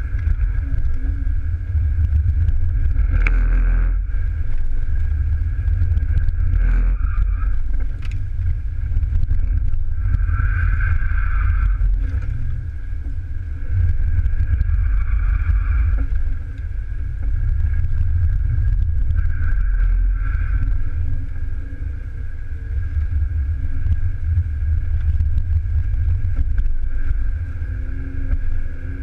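Cabin sound of a BMW E36 320i's straight-six engine being driven hard, with tyre and road rumble underneath. Its loudness swells and dips several times as the driver lifts off and gets back on the throttle.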